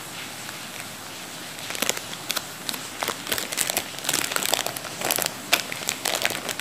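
Plastic packaging bag crinkling and rustling as it is handled and opened by hand, in many short irregular crackles that start about two seconds in.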